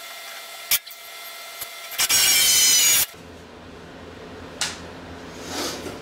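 Electric drill drilling out a stubborn screw in an old wooden body frame: one loud burst of about a second near the middle, with a sharp click shortly before it.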